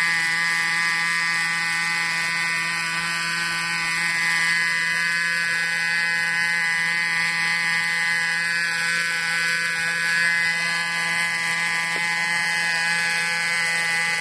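Gasoline-engine conversion of a Goblin 630 RC helicopter hovering, its small petrol engine and rotor giving a steady, even-pitched buzz.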